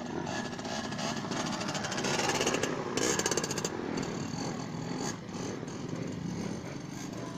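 Small two-stroke trail motorcycle engine revving hard at high revs while climbing a slope, loudest about three seconds in.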